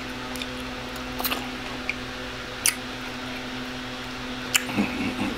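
Close-up wet mouth sounds of a man chewing lemon pepper fried chicken and licking his fingers, with several sharp lip smacks about a second in, near the middle and near the end, over a steady low hum.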